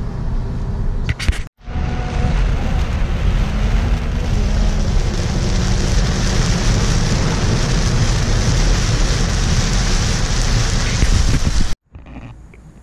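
Car road noise heard from inside the cabin. About a second and a half in it gives way to heavy rain pelting a moving car's windshield and roof, with tyre hiss on the wet highway, which cuts off abruptly near the end.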